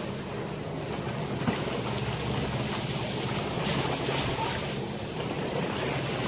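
Steady rush of sea water along the bow of a sailing catamaran under way, with wind buffeting the microphone.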